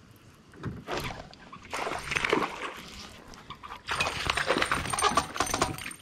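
Splashing and clattering as a hooked bass is brought to the side of a small boat and landed, in three bursts.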